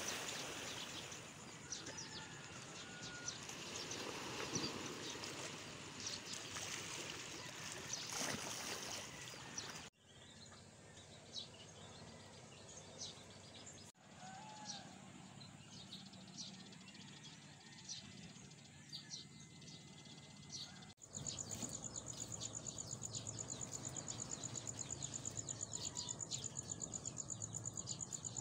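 Morning outdoor ambience by the sea: a steady wash of noise from the sea with birds chirping. Then, after a cut, a quieter stretch of scattered bird chirps and short calls. From about three-quarters in, a steady high-pitched, rapidly pulsing insect trill.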